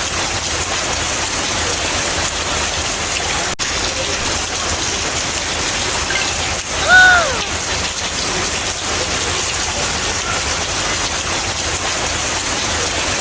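Steady, dense hiss of rain falling, with a brief high voice call, likely a child's, about halfway through.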